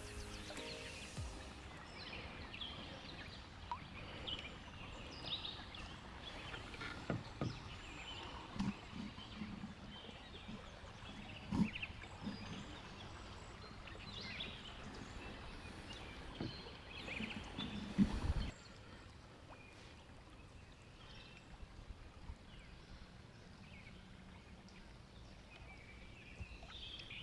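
Outdoor river ambience with scattered bird chirps over a faint steady background, and a handful of low knocks, most likely from the wooden-shafted canoe paddle and gear against the canoe hull. The knocks and most of the chirping fall in the first two-thirds; after that the background turns quieter.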